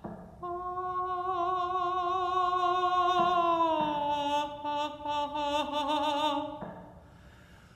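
A woman's solo voice, unaccompanied, sings one long held note. About halfway through it slides down to a slightly lower note, and the pitch wavers with widening vibrato before it fades out near the end.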